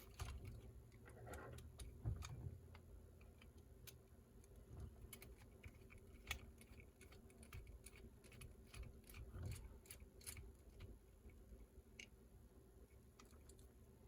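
Faint, scattered clicks and light taps of a small screwdriver and the plastic transmission parts of an Axial SCX24 mini crawler being worked loose by hand, with a few soft thumps of handling.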